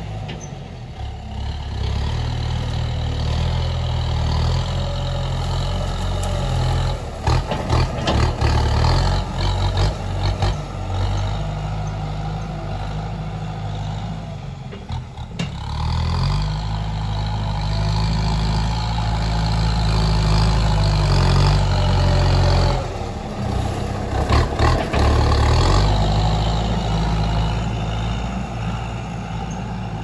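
Farm tractor engine running under load as its front blade pushes soil. The engine note rises and falls, and there are two stretches of clattering knocks, a few seconds in and again about two-thirds of the way through.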